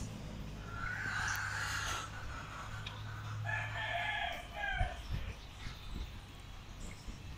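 A rooster crowing twice, the first crow about half a second in and the second about a second after it ends, over a low steady hum that fades out about four seconds in.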